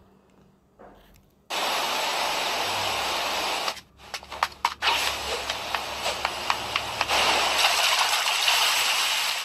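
Soundtrack of an anime fight clip playing back: a loud, steady rushing hiss that cuts in suddenly about a second and a half in, drops out briefly with a few sharp clicks around four seconds in, then carries on.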